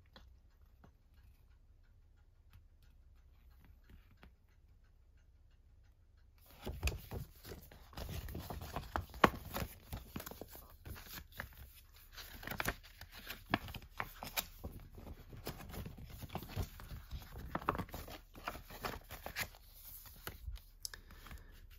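Near silence for about six seconds, then irregular rustling, sliding and light tapping of paper and card as printed inserts (a folded poster, card sleeves) are handled and pulled from a box.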